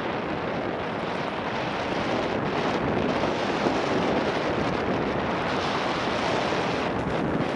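Wind rushing over the microphone of a camera on a mountain bike descending a dirt forest trail, mixed with the steady rumble of the tyres on the dirt.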